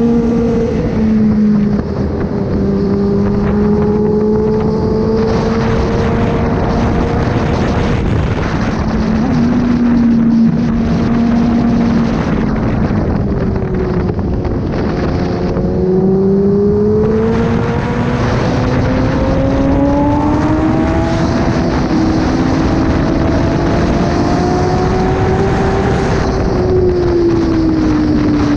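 Kawasaki ZX-10R inline-four engine breathing through an SC-Project exhaust, running steadily under way at part throttle. Its pitch eases down early on, climbs slowly through the middle and drops back near the end.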